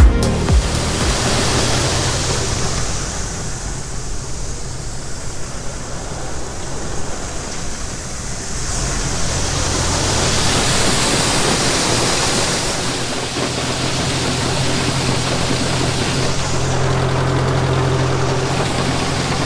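Grain bin unloading auger running with shelled corn pouring into a semi trailer: a steady rushing hiss over a low motor hum, swelling and easing a few times.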